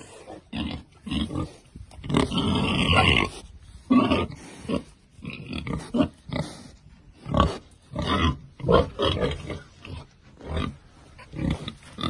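Pigs grunting close up, a run of many short grunts.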